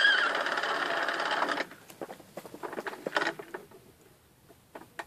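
Vintage Mattel See 'n Say 'The Farmer Says' toy winding down with a dense mechanical whir for about a second and a half, then scattered faint clicks and knocks as hands grip the toy and work its arrow and lever.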